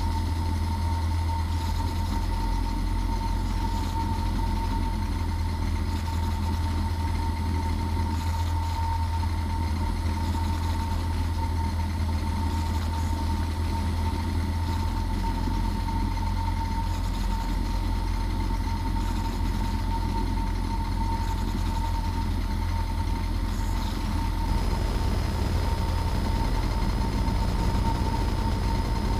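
Cessna 172P Skyhawk's four-cylinder Lycoming engine and propeller droning steadily inside the cabin on final approach. The low drone shifts about halfway through and again near the end, as the power setting changes. A steady thin high tone sits over it.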